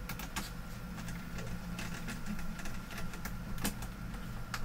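Scattered small clicks and taps of hands fitting a screw and parts onto a monitor's metal chassis and main-board shield.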